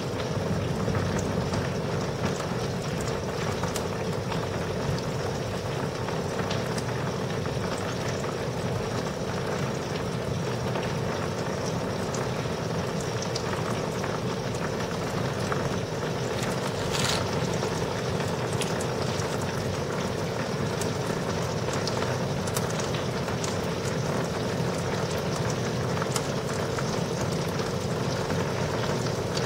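Heavy thunderstorm rain falling steadily, a dense even hiss dotted with scattered ticks of drops, with one sharper tick about seventeen seconds in.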